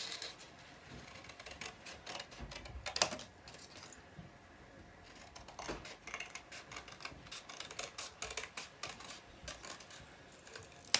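Scissors snipping through folded green card, cutting out a leaf shape: a run of small, irregular crisp snips, with a short pause about four seconds in.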